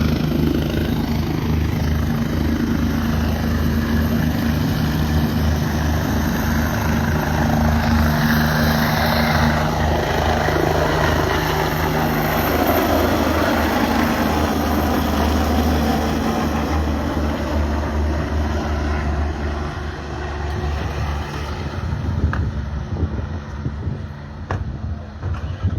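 Helicopter turbine and rotor running loud, a steady hum under a whooshing rotor wash. The steady hum drops out about halfway, and the sound grows weaker toward the end, with a few sharp clicks.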